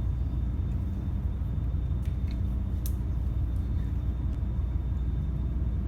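Wind buffeting the microphone: a steady low rumble, with a few faint clicks about two to three seconds in.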